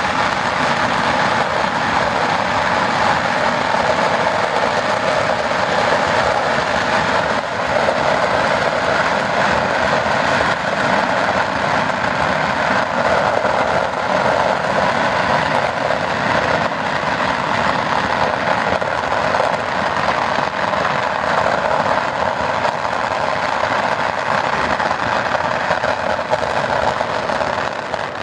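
Ground fireworks (fountains and set pieces) burning together, giving a loud, steady rushing hiss with a fine crackle running through it.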